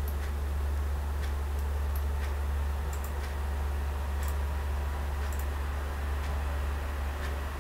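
Computer mouse clicking several times at irregular intervals over a steady low hum.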